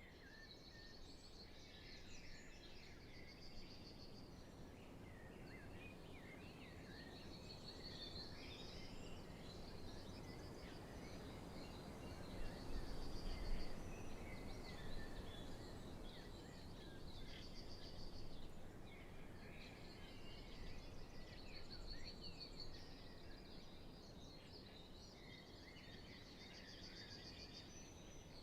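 Spring dawn chorus: many songbirds singing at once, a dense mix of chirps and repeated trills. Under it runs a faint low rumble that swells briefly about halfway through.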